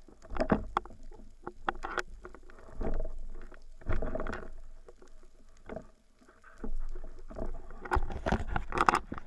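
Underwater water rush with irregular clicks and knocks from a diver's spearfishing gear being handled. The noise swells in several rushes and is loudest near the end.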